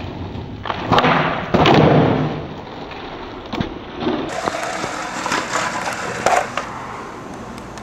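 Skateboard tricks on a concrete floor: wheels rolling, with sharp clacks and thuds as the board is popped, flipped and slaps down. There are several knocks, the loudest cluster about one to two seconds in.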